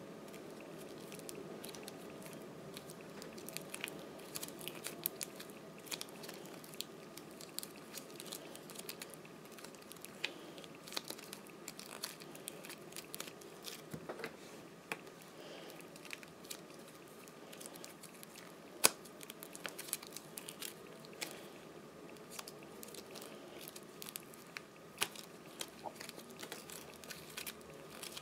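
Bouncy clay stretched, torn apart and kneaded by hand: faint, irregular crackles and small tearing, squishing sounds, with one sharper snap about two-thirds of the way through.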